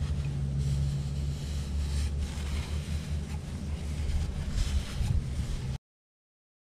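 A steady low hum with faint rubbing as gloved hands wipe a greasy wheel-bearing spacer with a paper towel. The sound cuts off abruptly near the end.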